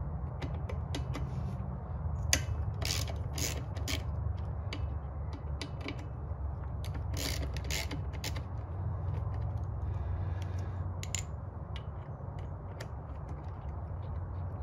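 Ratchet with a T27 Torx bit clicking in short runs as the carburetor mounting bolts are loosened, over a steady low hum.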